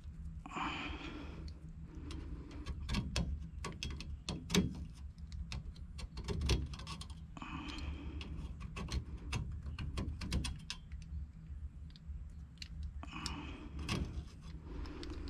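Handling and movement noise: irregular clicks, small knocks and scrapes, broken by three longer hissing, breath-like noises of about a second each.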